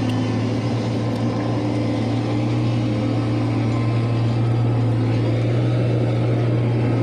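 Road roller's diesel engine running steadily with an even, unchanging hum.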